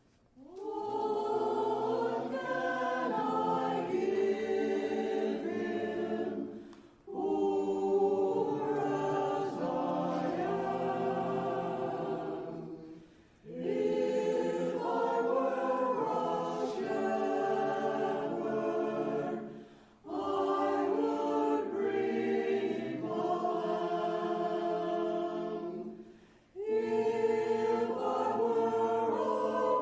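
Choir singing in long phrases of about six seconds each, with brief pauses between them.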